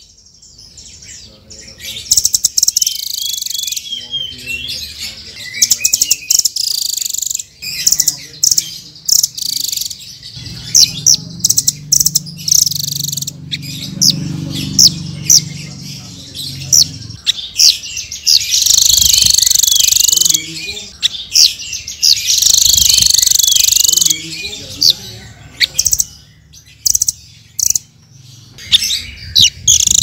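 Small songbirds calling from a mixed bird-training recording of nuthatch (cimblek, rambatan) and sunbird (kolibri) song: rapid high chirps and fast trills in bursts with short gaps. A low hum runs underneath for several seconds in the middle.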